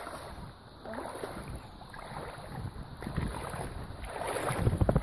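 Wind buffeting the microphone, an uneven low rumble.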